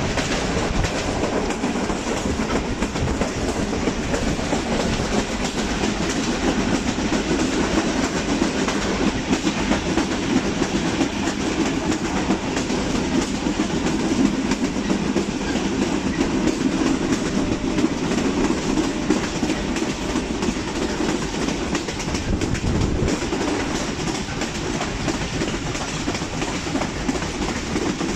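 Passenger train running along the track, heard from aboard at an open coach door: a steady rumble with the wheels clattering over the rails.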